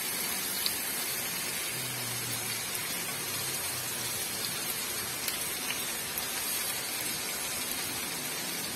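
Ground beef frying in a wok: a steady sizzling hiss with scattered small pops.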